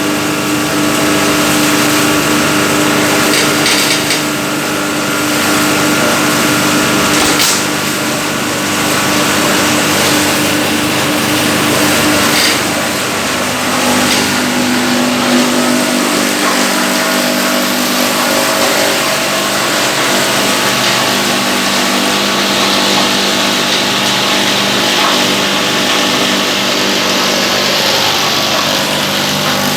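Wet waste chopper-grinder with rotary blades running steadily, a mix of steady tones and grinding noise, with a couple of sharp knocks about a third of the way in.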